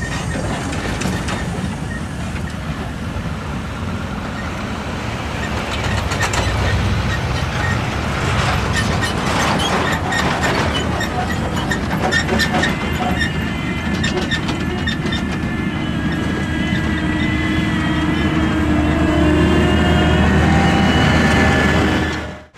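John Deere X9 combine running while harvesting soybeans: a steady low engine drone with rapid clattering from the machinery. Whining tones rise in pitch over the last few seconds, then the sound cuts off suddenly.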